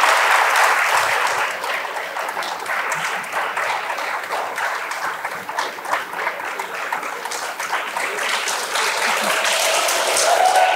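Audience applauding steadily, loudest at the start and easing off a little.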